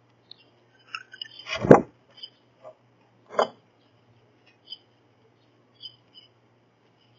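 Small birds chirping in short high notes every second or so at a feeder, with two loud knocks on the feeder about a second and a half apart. A faint steady low hum runs underneath.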